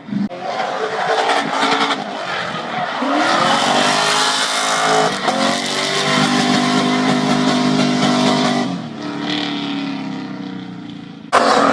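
BMW E30 3 Series engine revving hard under acceleration. The pitch climbs, breaks briefly about halfway through as at a gear change, holds high, and then eases off. A different loud engine cuts in suddenly just before the end.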